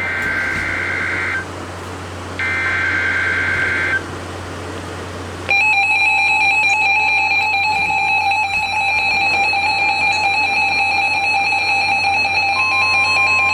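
Emergency Alert System SAME header tones from a weather radio: two bursts of shrill warbling data tones, each a little over a second long, about a second apart. Then, about five and a half seconds in, a steady, loud alert tone starts and holds, with a second, higher tone joining near the end. This is the alert signal that announces an incoming weather warning.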